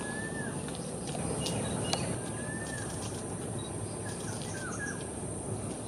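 Sunbird calling: a few short, thin whistled notes, some sliding, with faint high chips between, over a steady high hiss.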